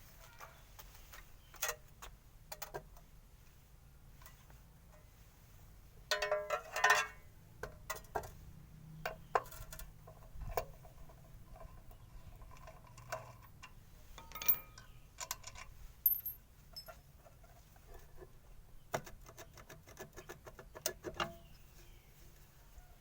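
Irregular light metallic clinks and taps, with a denser cluster about six seconds in, over a faint low hum.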